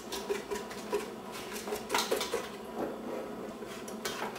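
A utensil clinking and scraping against a mixing bowl as flour is stirred into pie-crust dough, with a few sharper knocks about one and two seconds in.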